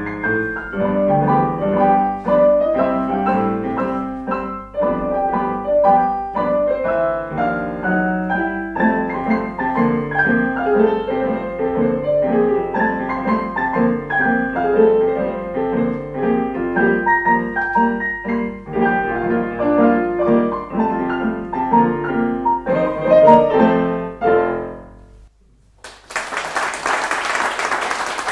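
Piano music, full chords with a running melody, played to the close of the piece. The last chord dies away near the end, and after a brief pause an audience breaks into applause.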